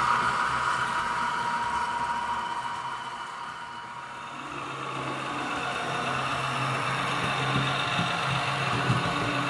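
H0 model trains running on the track: a passing coach train's wheel rumble and steady motor whine fade away over the first three seconds or so. Then a red railbus model approaches and a low motor hum with wheel clicks grows louder.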